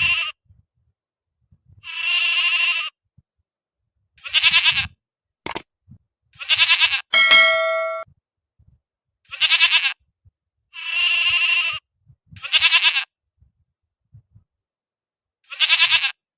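Farm animal bleating: about eight separate calls, each roughly a second long, some steady and some quavering. A sharp click comes about five and a half seconds in, and a single bell-like ding rings out and fades about seven seconds in.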